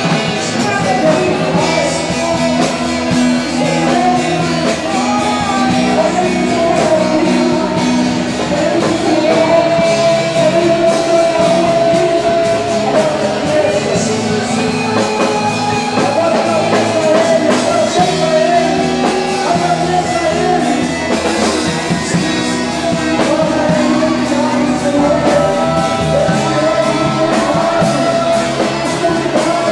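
Music with singing over a rock-style band with guitar, loud and continuous.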